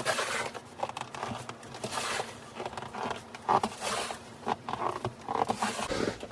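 Snow being shoveled by hand: a string of irregular crunching scrapes as the shovel and boots work through deep snow.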